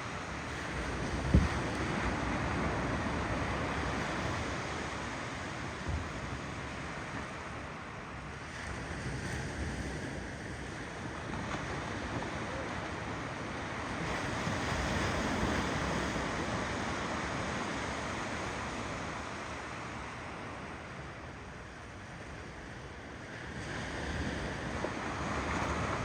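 Ocean waves rolling onto the shore, the surf swelling and fading roughly every ten seconds, with wind on the microphone. A brief low thump comes about a second in.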